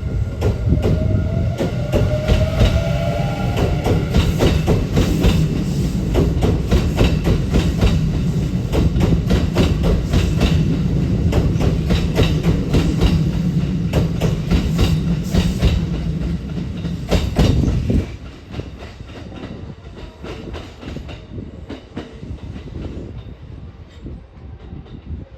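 Kintetsu 9820 series six-car electric train running past, its wheels clacking rhythmically over rail joints under a steady low rumble, with a brief rising motor whine a second or so in. The sound drops sharply about 18 seconds in and fades to a quieter rumble as the train moves away.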